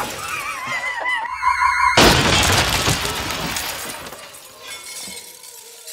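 The glass door pane of a wooden display cabinet shatters when a projectile from a pipe cannon hits it: a sudden loud crash about two seconds in, then falling glass that fades over the next couple of seconds. Before the crash, a wavering whistling tone follows the cannon's bang.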